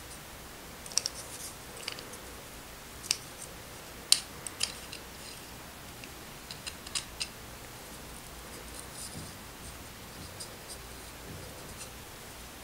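A screw turned by hand through a hex nut set in a small pine block: scattered sharp metal clicks and small scrapes, thickest over the first seven seconds and fainter after.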